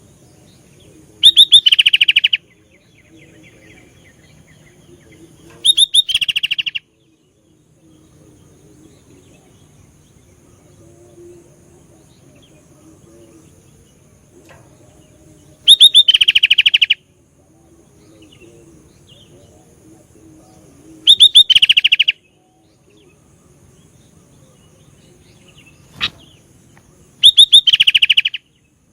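Sooty-headed bulbul (kutilang) giving five short bursts of rapid, chattering chirps, each about a second long and several seconds apart. One sharp click comes between the last two bursts.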